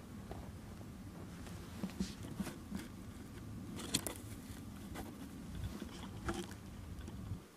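Faint handling noise close to the microphone: scattered small clicks and rustles over a low rumble, with the sharpest clicks about two and four seconds in.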